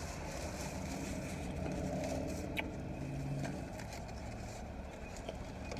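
Low, steady rumble of a car engine idling, heard inside the car, with light crinkling of sandwich wrappers and a small click about two and a half seconds in.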